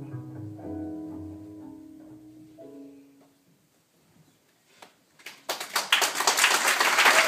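Instrumental music with sustained low notes fades out over about three seconds. After a short hush, an audience bursts into loud applause about five seconds in.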